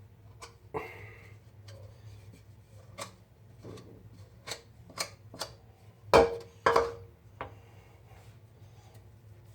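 Shaving gear being handled: scattered light clicks and knocks, with two louder knocks about six seconds in.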